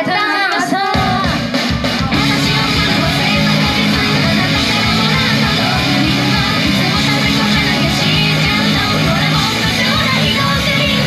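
Loud rock backing track with distorted guitar and a steady drum beat kicking in about a second in, just after a short call from a voice.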